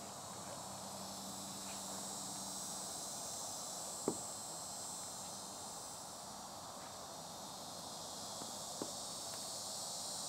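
High, steady chorus of insects chirring outdoors, with two small clicks about four and nine seconds in.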